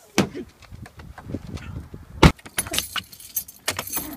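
A car door shuts with one sharp thud about two seconds in. It is followed by a rapid run of keys jangling as a key is pushed into the car's ignition.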